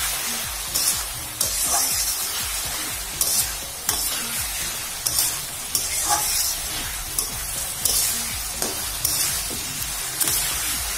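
Moringa drumstick and potato pieces sizzling in oil and spices in a metal wok, stirred with a metal spatula that scrapes and knocks against the pan about once a second. This is the curry being cooked down in its spices.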